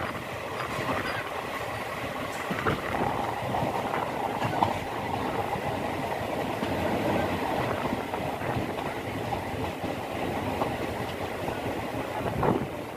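Passenger express train running on the rails, heard on board: a steady rumble and rattle of the coach's wheels on the track, with a few faint knocks.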